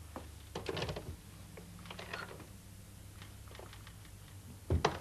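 Scattered soft clicks and rustles of someone moving about a small office, then a single heavy thump near the end as the wooden office door shuts.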